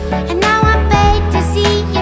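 Pop song playing: a melody line over a steady bass and backing.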